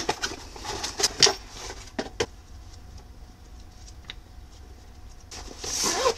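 Unboxing handling noise: a cardboard box handled with several sharp taps and scrapes, then quieter paper rustling as a booklet's pages are flicked, and near the end a zipper on a soft fabric case pulled open with a short rasp. A steady low hum sits underneath.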